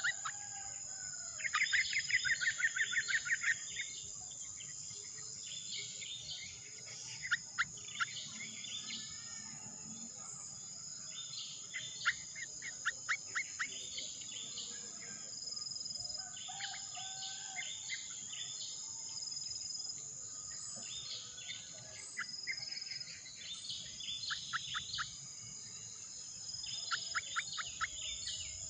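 Quick trains of short, high bird chirps come and go every few seconds over a steady, high-pitched insect drone.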